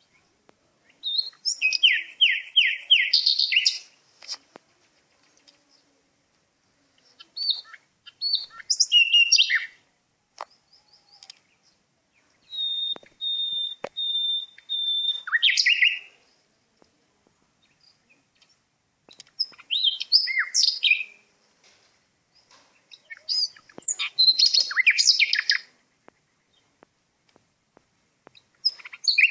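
A songbird singing in loud, varied phrases a few seconds long with pauses between them: quick trills, and about halfway through a run of five or six clear repeated whistled notes ending in a falling note.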